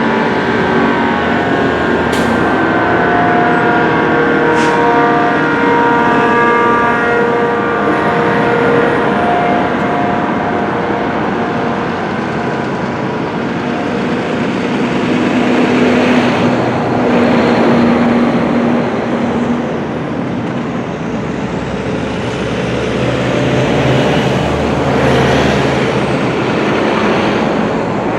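ACA Banshee 115 dual-tone outdoor warning siren winding down after its alert signal. Its two tones fall steadily in pitch and swell and fade as the rotating horn sweeps past, over a steady wash of road traffic.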